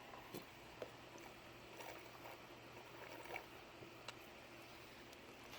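Near silence: faint background with a few scattered light clicks.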